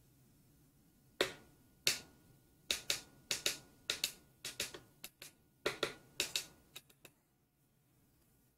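A run of about eighteen short, sharp clicks in an uneven rhythm, some in quick pairs, starting about a second in and stopping about seven seconds in.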